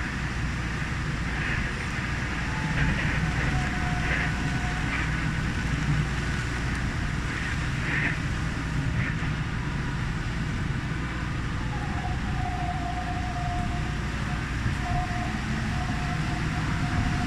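Yui Rail straddle-beam monorail train running on its rubber tyres, a steady rumble with a faint whine that comes and goes.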